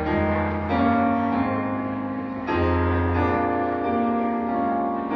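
Piano playing a slow prelude of sustained chords, a new chord struck every second or two and left to fade.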